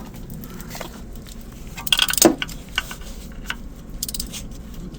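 Wrench tightening a seized diesel glow plug to twist it until it snaps, with scattered metallic clicks and creaks. There is a cluster of sharp clicks about two seconds in.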